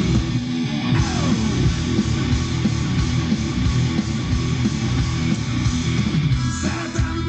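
Rock music with electric guitar and a heavy bass line, played through a homemade two-channel stereo amplifier.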